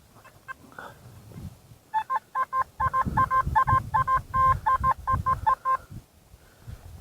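Metal detector beeping over a buried metal target: a run of short electronic tones, about three a second, starting about two seconds in and stopping near six seconds. Low wind buffeting on the microphone runs underneath.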